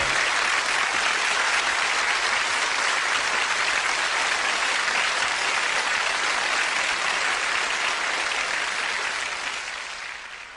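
Studio audience applauding, a steady clatter of clapping that fades over the last two seconds and then cuts off.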